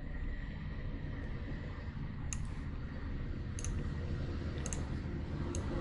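Computer mouse clicking now and then, about five separate clicks with two close together near the middle, over a steady low background hum.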